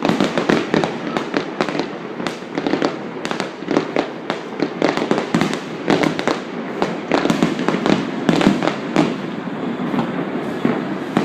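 New Year's fireworks display going off in a continuous barrage, many sharp bangs in quick succession with no pause.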